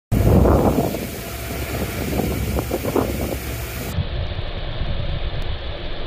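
A ferry's foaming wake rushing and churning against the hull, with wind buffeting the microphone, strongest in the first second.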